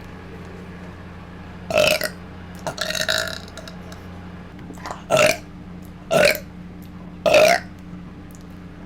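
A person burping loudly five times in quick succession, each burp short.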